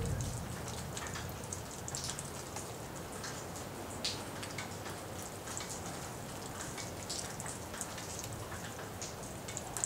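Thunderstorm rain falling steadily, with many sharp drops ticking and pattering on nearby surfaces; one louder drop hits about four seconds in.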